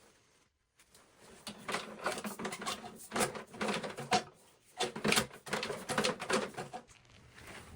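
Rapid, irregular clicking and clattering of hard objects being handled, in bursts over several seconds.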